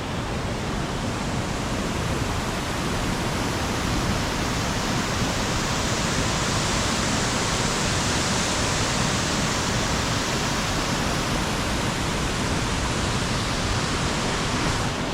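Waterfall pouring and crashing in a steady, unbroken rush of water noise.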